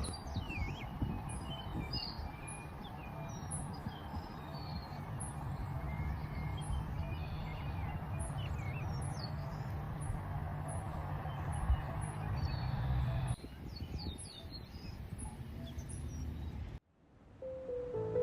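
Small birds chirping and singing over a steady low rumble, with a faint high pulse repeating about one and a half times a second. Near the end the sound cuts out briefly and music begins.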